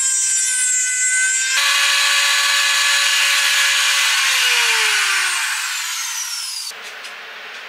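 Trim router running at high speed with a high-pitched whine while cutting a notch in teak. About four seconds in it is switched off and its whine falls in pitch as the motor spins down.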